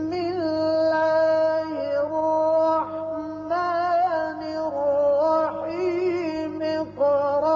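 A solo voice chanting a slow melody in long held notes that waver and glide, over a faint steady low hum.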